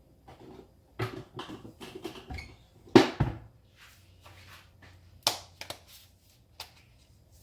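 A series of irregular knocks and taps of kitchen containers being handled on a countertop, the loudest about three seconds in and another a little after five seconds.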